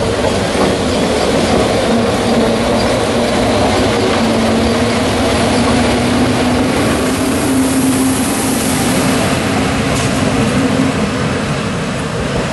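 The 1916 Bernina Railway electric locomotive BB 81 rolling past close by, with wheel and rail noise. Its traction-motor hum rises in pitch partway through, as the locomotive picks up speed, and then holds steady.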